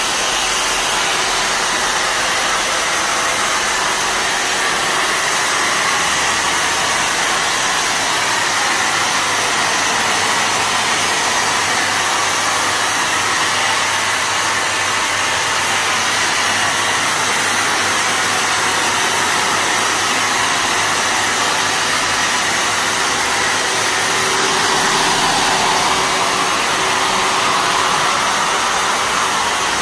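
Electric cold fogger running, its motor and blower giving a steady rushing noise with a faint hum, as it sprays a fog of treatment liquid.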